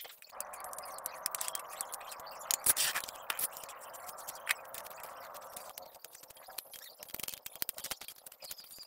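Body filler being worked onto a steel motorcycle carrier with a plastic spreader: continuous scraping for about the first six seconds with light clicks, a few sharper taps around three seconds in, then scattered clicks.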